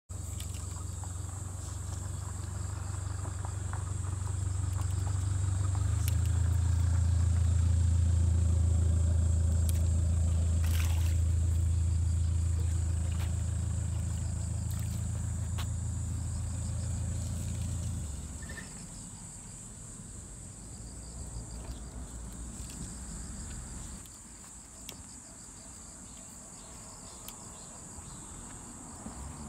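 Insects trilling steadily at a high pitch, under a low engine-like rumble that swells, eases and then drops away about two-thirds of the way through.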